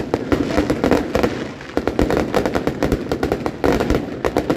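Fireworks going off in quick succession: loud bangs and crackles, several every second, overlapping throughout.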